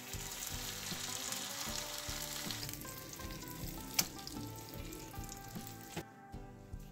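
Minced-meat burger patty sizzling as it fries on a buttered ridged grill pan, the hiss fading and cutting off about six seconds in. A single sharp tap about four seconds in, over background music.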